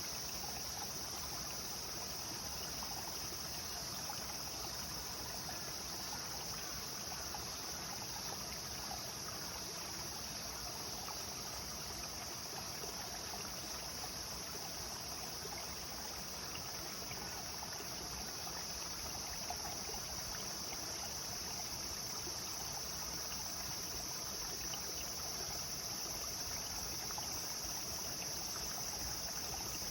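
Clear river running steadily over stones, a continuous babble of flowing water. A constant high-pitched insect chorus sits over it.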